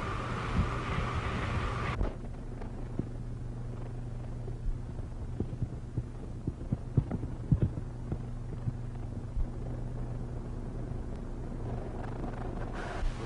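Steady low hum and hiss of an old optical film soundtrack. The hiss drops away suddenly about two seconds in, and scattered clicks and pops of surface noise cluster between about five and eight seconds in.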